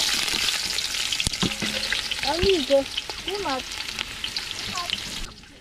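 Sliced red onions frying in hot vegetable oil in a metal cooking pot: a loud, steady sizzle that cuts off suddenly near the end.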